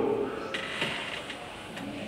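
A pause in a man's talk: low reverberant church room noise with a few faint clicks.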